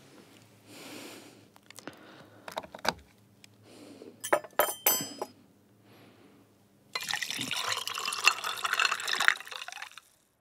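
A few sharp metallic clinks of a steel tumbler being handled, then water running from a bottled-water dispenser's tap into the tumbler for about three seconds, stopping suddenly near the end.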